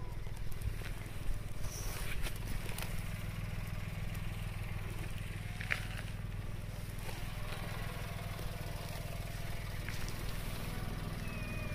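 A steady low rumble, with a few faint cat meows now and then, one near the end falling in pitch.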